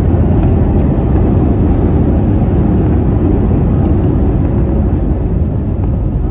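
Inside the cabin of an Airbus A320-family airliner rolling out on the runway after landing, with spoilers up: a loud, steady low rumble of engines, airflow and wheels, easing off slightly towards the end as the aircraft slows.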